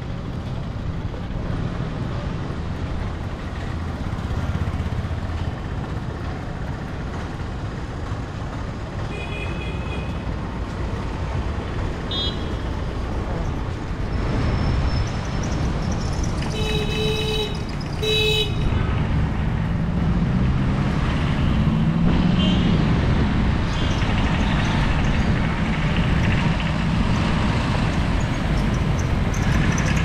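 Town road traffic heard from a moving bicycle: a steady low rumble of passing vehicles, with horns beeping several times. The two loudest honks come close together just past the middle.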